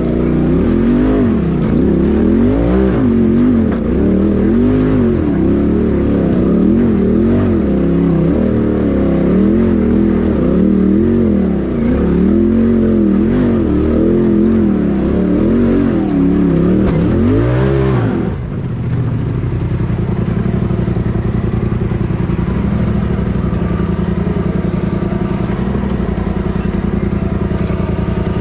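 Polaris RZR Turbo side-by-side engine working over rough trail, its revs rising and falling over and over, about once every second or two. About 18 seconds in it settles into steadier running at a lower pitch.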